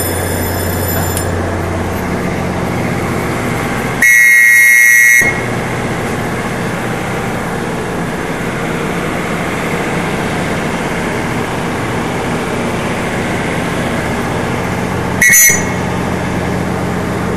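Train door warning buzzer sounds loudly for just over a second, then once more briefly near the end, over the steady hum of an electric train standing at the platform.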